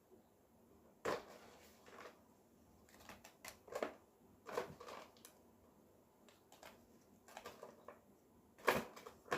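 Quiet handling noises: a dozen or so brief rustles, taps and light knocks, spaced irregularly, with a louder one about a second in and another near the end.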